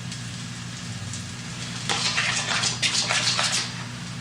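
Pancake batter sizzling in a hot buttered frying pan: a steady hiss, with louder crackling from about halfway through.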